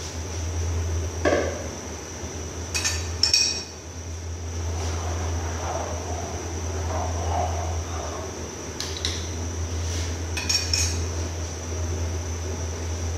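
Metal cookware and utensils clinking about six times: a few sharp knocks in the first four seconds and a few more around nine to eleven seconds, over a steady low hum.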